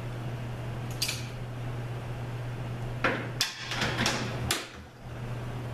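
Metal tool-and-parts clatter on a workbench: a single light click about a second in, then a short run of sharp metallic clinks and knocks from about three to four and a half seconds in, as a long screwdriver is set down and the transmission case is handled. A steady low hum lies underneath.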